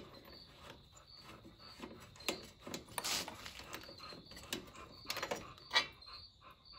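Faint, scattered clicks and knocks of a socket wrench and hands working on a small riding-mower engine, as the spark plug is taken out to check for fuel flooding the cylinder.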